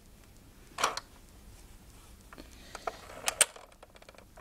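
Battery-operated Singer children's sewing machine stitching through fabric, its needle mechanism giving a few sharp clicks: one about a second in and two close together about three and a half seconds in.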